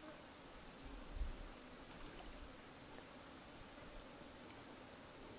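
Faint, high chirping from a small animal, repeated evenly about three times a second, over a low rumble of wind on the microphone.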